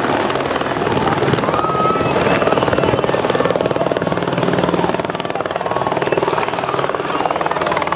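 Helicopter running, its rotor giving a steady, rapid chop.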